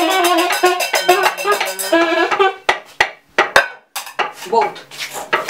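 Free-improvised music: a white plastic wind instrument plays a quick run of short notes over fast rattling hand percussion, stopping about two and a half seconds in. Sharp single knocks then follow, about two a second.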